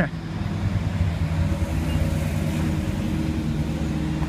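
A motor vehicle engine running steadily: an even, low hum with a rumble underneath.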